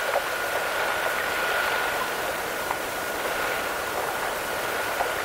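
Steady hiss of an open two-way radio channel with no voice on it, a thin steady whistle running through the hiss.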